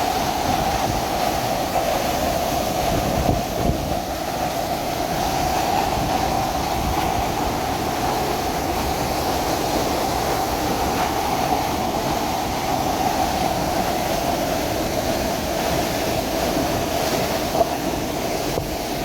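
Steady rush of a waterfall, falling water making a constant noise.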